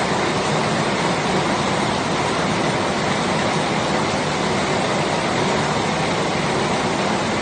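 Steady rain falling, an even hiss that holds level without breaks.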